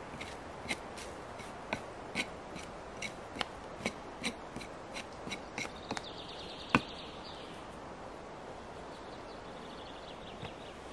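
Short scraping and clicking strokes of a knife working at moss and ground, about one or two a second, which stop after about six seconds; one sharper knock comes about seven seconds in. A bird trills faintly twice in the background.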